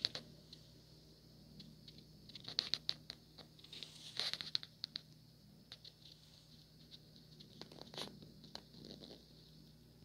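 Faint handling noise: scattered small clicks, taps and scratchy rustles, thickest from about two and a half to five seconds in and again near eight seconds, over a steady low hum.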